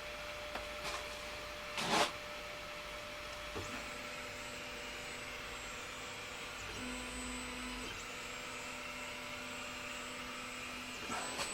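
Laser engraver sitting ready with a steady hum, its head motors whining faintly in changing pitches as the head moves for an alignment check. A single knock about two seconds in.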